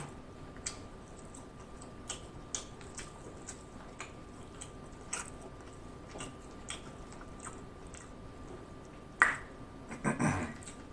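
Fingers picking apart crispy Popeyes fried chicken with mouth sounds of chewing: soft, scattered crackles and smacks of the breading. About nine seconds in comes a sharper, louder crackle, and just after it a short vocal sound.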